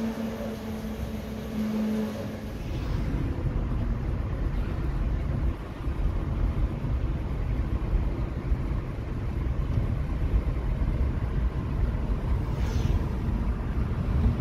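Low, steady road and engine rumble heard from inside a moving car's cabin. It takes over about three seconds in, after a short steady hum.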